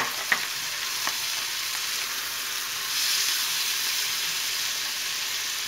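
Ground beef, mushroom, onion and pepper sauté sizzling in a frying pan as diced tomatoes are stirred in with a spatula. A few knocks of the spatula on the pan come in the first second, and the sizzle grows a little louder about three seconds in.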